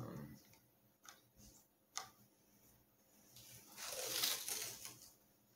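Green masking tape being pulled off its roll, a rough tearing rasp lasting about a second around four seconds in. It comes after a single sharp click about two seconds in and a soft knock of the tape and rocket being handled at the start.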